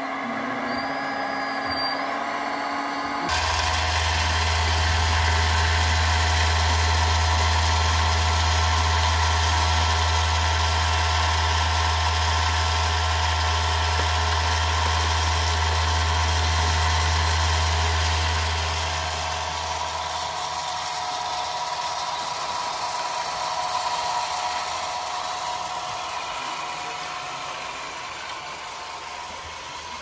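RC model construction machines running: a steady, engine-like low hum under a constant mechanical whine. The hum dies away about two-thirds of the way through.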